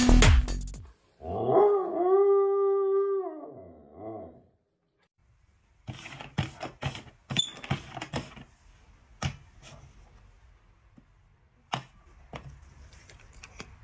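A dog howls once, a long rising, held and falling cry lasting about three seconds. Then a run of sharp clicks and knocks as plastic cups are slid and set down on a board, with two more knocks near the end.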